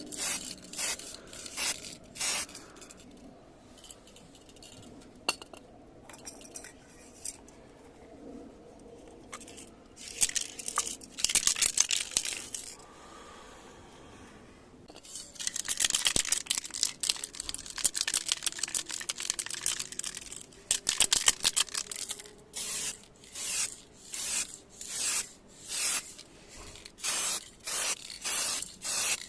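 Hand sanding on a damaged car body panel: sandpaper scraping back and forth in short strokes, in runs with pauses, settling into about one stroke a second near the end.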